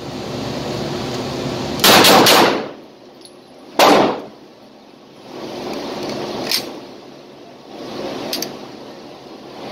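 9mm Beretta 92A1 pistol fired in rapid succession in a concrete indoor range lane: a quick string of shots about two seconds in, then another loud shot about four seconds in. Two fainter bangs follow later.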